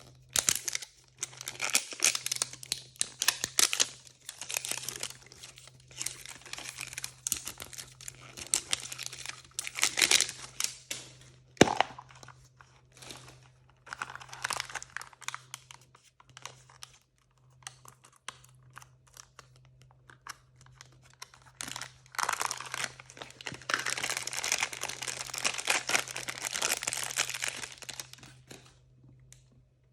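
Plastic blind-bag packaging crinkling and tearing as it is handled and ripped open by hand, with one sharp click a little before halfway and a long stretch of dense crinkling near the end. A faint low hum runs underneath.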